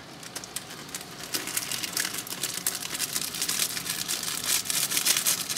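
Foil hop packet crinkling in the hands as it is squeezed and hop pellets are shaken out into a mesh hop bag, a dense run of crackles that thickens about a second and a half in.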